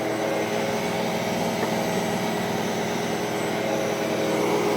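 High-powered blender motor running steadily at speed, blending a thick batch of hummus.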